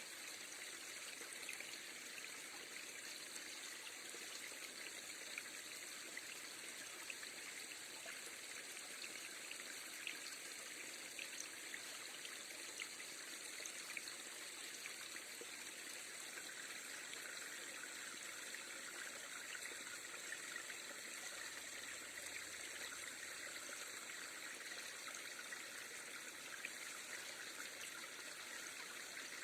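River water flowing and trickling steadily, with a few faint ticks now and then.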